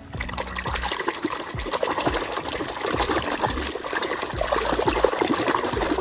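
Water running and splashing over toy vehicles as they are washed, starting just after the beginning.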